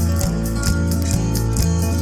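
Background music: a plucked-guitar track over a steady beat, with bass notes changing about twice a second.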